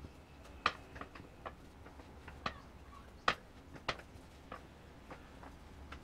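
Dough being pressed flat and rolled out with a wooden rolling pin on a plastic sheet over a wooden table: light, irregular clicks and taps, roughly one every half second to second.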